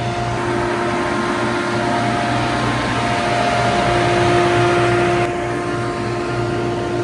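Vintage SuperB grain dryer running: a loud, steady fan drone with a constant hum, its upper hiss dropping away suddenly about five seconds in.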